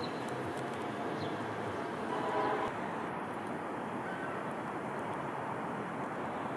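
Outdoor city street ambience: a steady hum of traffic, with a brief bird call a little after two seconds in. The background noise changes abruptly just before three seconds in.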